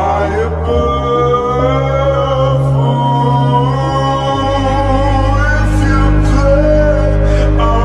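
Slowed-down song: long held sung notes over a sustained bass, with the chord changing about a second in and again at about four seconds.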